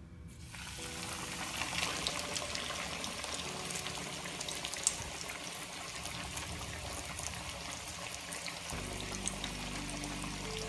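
Panko-breaded chicken katsu cutlets sizzling and crackling in hot deep-frying oil. The sizzle starts as the chicken goes into the oil and builds over the first couple of seconds to a steady bubbling crackle. Soft background music plays underneath.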